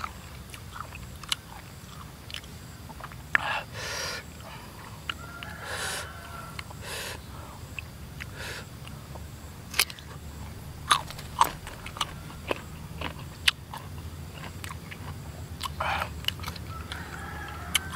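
Close-up biting and chewing of crisp young green mango slices, with scattered sharp crunches through the bites.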